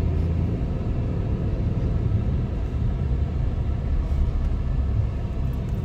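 Steady low rumble of a car being driven, heard from inside the cabin: engine and tyre road noise.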